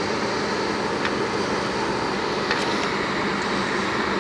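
Steady air rush from a 2006 Jeep Liberty's air-conditioning blower, heard inside the cabin with the engine idling.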